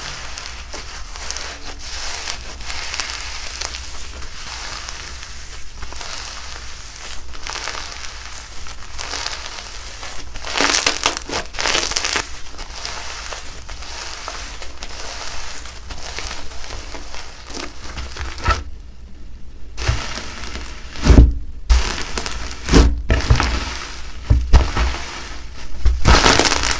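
Hands squeezing and stretching a beaded crunchy slime, giving a steady crackling crunch. The crunching grows louder about ten seconds in. Later come two brief silent gaps and a few low thuds.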